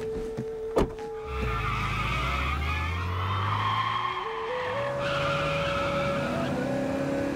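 A car door slams about a second in. The car's engine then revs hard and its tyres squeal in a wheelspin as it pulls away, the engine rising in pitch, with a short break near five seconds as it shifts up. A held musical note runs underneath.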